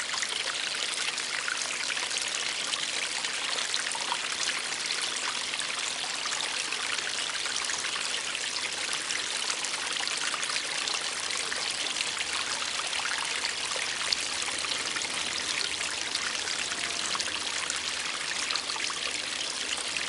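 Small garden-pond waterfall: water spilling steadily over slate stones into the pond, a continuous trickling splash.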